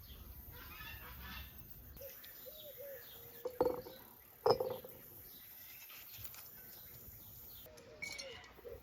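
Birds calling outdoors: short honking calls a couple of times, with faint chirping throughout. Two sharp knocks around the middle are the loudest sounds.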